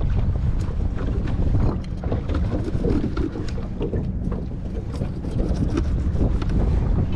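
Wind buffeting the microphone in a steady low rumble, with a knife tapping and scraping on a cutting board as bait is cut, many short clicks.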